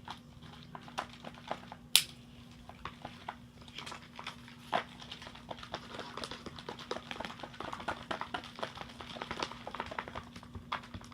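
Shaving-cream slime being mixed in a container: a run of irregular small sticky clicks and squelches, with one sharper click about two seconds in.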